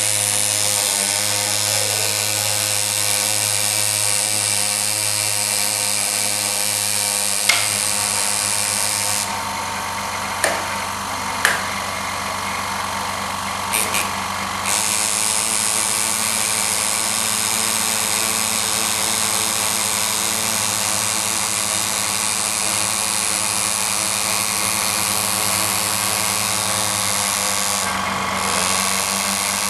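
Pneumatic engraver's handpiece buzzing steadily as its graver chisels an outline into a polished metal Harley-Davidson engine cover. From about nine seconds in the hiss thins for several seconds, with a few sharp clicks, then the full buzz comes back.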